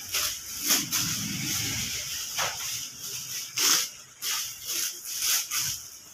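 Plastic bread wrappers crinkling and rustling in several short bursts as wrapped loaves are handled and pressed into a plastic crate, with a low rumble of handling in the first two seconds.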